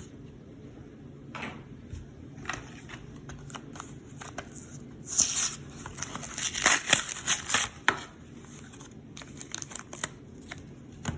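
A Pokémon booster pack's foil wrapper crinkling and tearing as it is opened, loudest for a few seconds mid-way, with short rustles and clicks of cards being handled around it.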